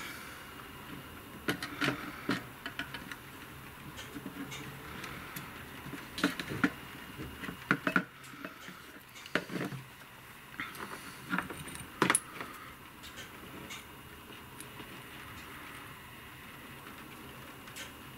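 Scattered light clicks, taps and small metallic rattles from handling a soldering iron, flux and small parts during a repair. They come close together for most of the stretch and thin out over the last few seconds.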